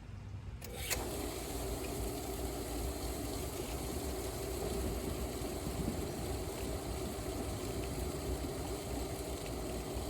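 Pool pump switched on with a click about a second in, then running steadily with a hum and the rush of water being pushed through the wood-fired pool heater's hoses.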